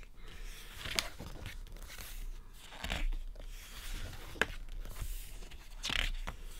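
Pages of a large photobook being turned by hand: paper rustling and swishing, with two sharp ticks, one about a second in and one past the middle.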